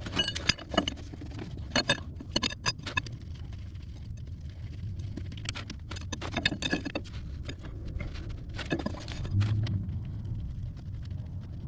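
Metal tools and fittings clinking in scattered sharp clicks and rattles as a wrench works on an excavator's hydraulic hose fittings, over a steady low hum.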